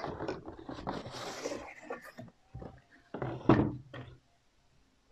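Cardboard packaging being handled: scraping and rustling as a box is slid out of a carton, then a few knocks and a louder thump about three and a half seconds in as a cardboard box is set down on the table.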